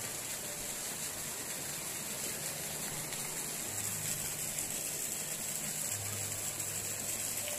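Steady hiss of background noise, with a faint low hum that fades in and out about four seconds in and again near six seconds.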